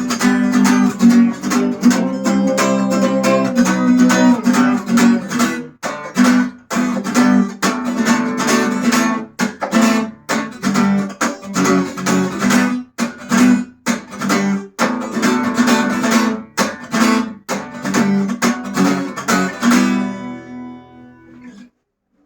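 Acoustic guitar strummed in a steady rhythm as the instrumental close of the song, with no singing; the strumming stops near the end and the last chord rings out and fades.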